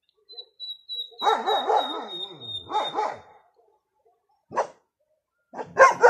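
A dog barking in bursts: a run of barks about a second in lasting some two seconds, a single short bark near the middle, and another loud run starting near the end. A long, steady, high whistle-like tone sounds under the first run of barks and stops shortly after it.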